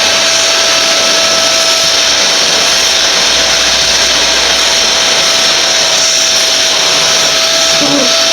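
Bennett Read vacuum cleaner running steadily: an even motor rush with a constant whine held at one pitch.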